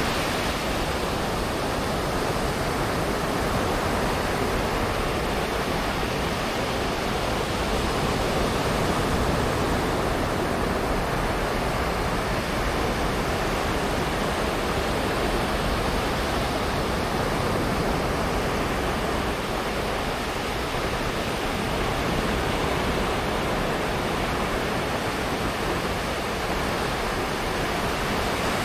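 Ocean surf breaking and washing on a sandy beach: a continuous rush of water that swells a little every several seconds.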